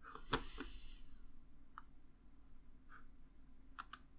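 Faint computer mouse clicks: a few scattered single clicks, then two in quick succession near the end, over low steady room hiss.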